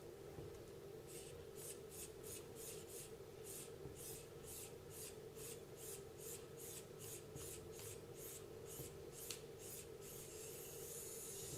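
Rhythmic rubbing strokes, about three a second, as something is rubbed or scrubbed by hand, followed by a steady hiss near the end.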